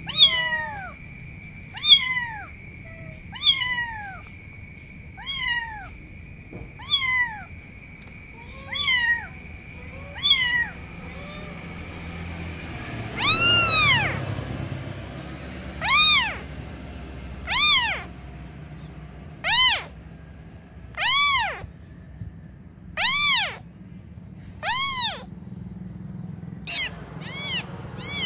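Young kitten meowing over and over, calling for its mother: short falling meows about every one and a half to two seconds, then from about halfway louder, longer meows that rise and fall, coming quicker near the end.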